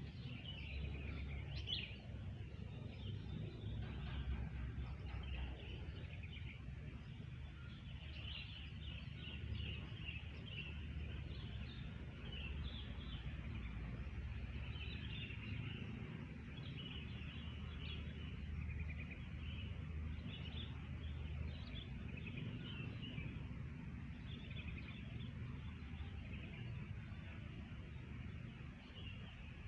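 Wild birds chirping in many short, quick calls, over a steady low rumble.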